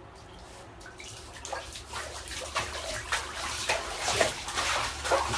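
Bathtub water splashing and sloshing as a dog paddles its legs in it, starting about a second in and growing louder, then cutting off suddenly.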